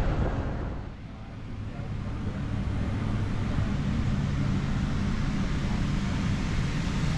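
Outdoor wind ambience fades out about a second in. It gives way to a steady low machinery hum with a few held low tones, heard inside a parked airliner's cabin.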